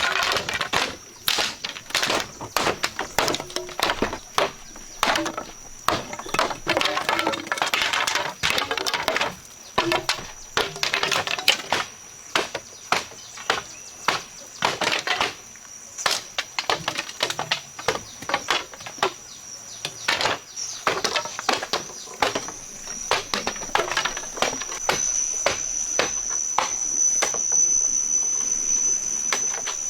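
Irregular chopping knocks, typical of a blade cutting a piece in two, with a steady high-pitched whine coming in past the middle and growing louder near the end.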